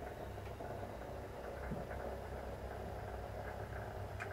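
Model steam boat's boiler under test: a steady low hum with faint, irregular light ticks.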